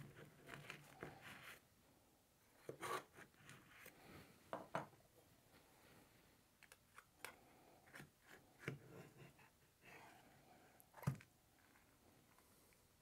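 Faint crackling and scraping of a knife cutting through the crisp baked top crust of a pie, then a pie server scraping under a slice against the pie plate, with a sharp knock just after eleven seconds.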